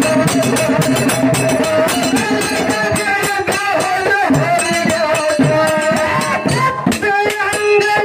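Live folk devotional music: fast, busy percussion with rattle-like jingling over a held instrumental note, and a voice begins singing near the end.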